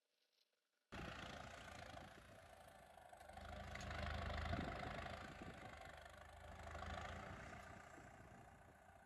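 A vehicle engine running, starting abruptly about a second in, swelling louder near the middle and again a little later before easing off.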